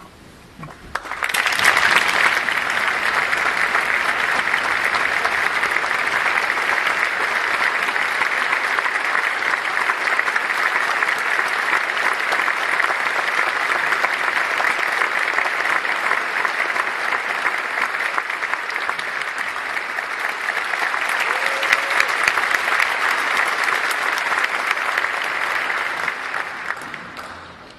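Large concert audience applauding. The clapping starts about a second in, holds steady and dies away near the end.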